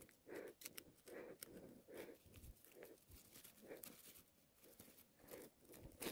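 Faint scraping and crunching of forest soil as a small pointed digging stick loosens earth around a wild ginseng root, in short repeated strokes with small clicks.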